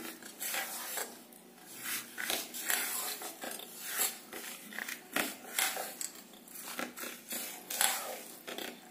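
A spoon stirring chicken pieces in a thick spice-and-curd marinade in a metal bowl: irregular scrapes and clinks of the spoon against the bowl.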